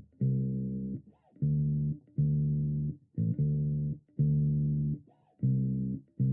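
Background music: a bass guitar plays a repeating riff of low plucked notes, each about half a second long with short gaps between them. A quick upward slide comes about a second in and again about five seconds in.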